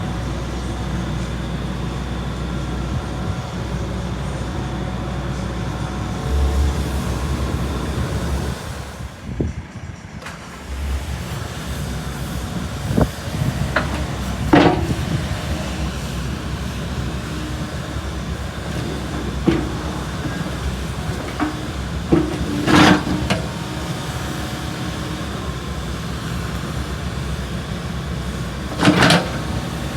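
Kobelco SK75SR-3E mini excavator's diesel engine running steadily, easing off briefly near a third of the way in. Several short sharp clanks or squeals from the machine stand out over it, the loudest two near the end.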